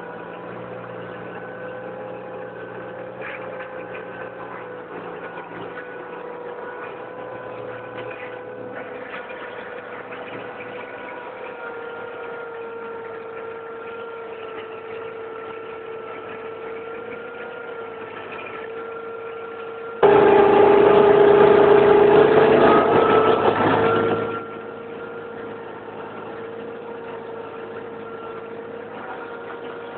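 Tractor engine running steadily under load while pulling a plough, heard from the driver's seat. About two-thirds of the way through, the sound jumps much louder and rougher for around four seconds, then drops back to the steady running.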